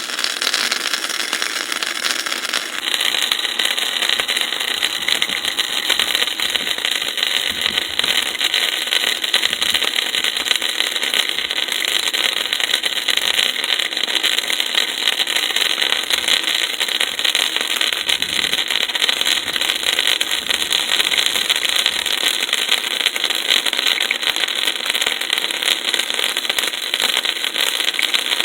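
Welding arc crackling steadily and continuously, starting abruptly, as a bead is laid on scrap steel.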